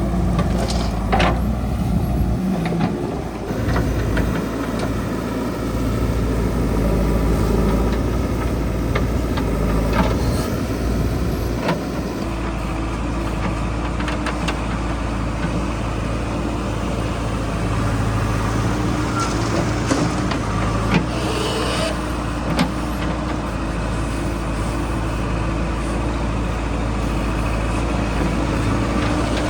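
Diesel engine of a JCB 3DX backhoe loader running steadily under load while it works, with a few short knocks and clanks scattered through.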